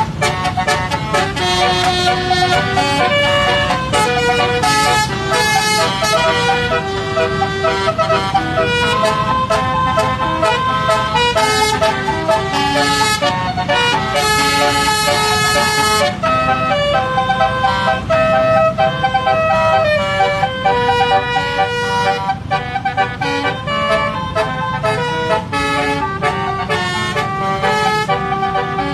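A basuri musical vehicle horn (telolet-style) playing a song melody: a continuous string of loud horn notes, several sounding together, stepping from pitch to pitch about every half second.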